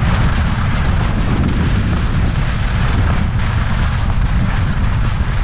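Wind buffeting a skier's action-camera microphone at speed, a loud steady rumble, with the hiss of skis sliding over packed snow.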